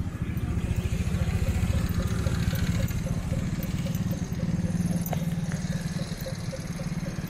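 A small vehicle engine running close by at a steady speed, a low even rumble that gets louder about half a second in.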